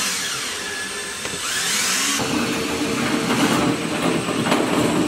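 Electric drill turning a 72-inch-long drill bit, boring down through the inside of a wall toward the floor below. The motor speed rises and falls at first, then it runs steadily under load.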